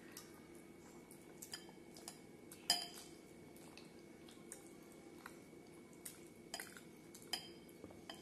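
Fingers working milk-soaked bread in a glass bowl, giving faint, scattered clicks and clinks against the glass. The loudest comes about three seconds in.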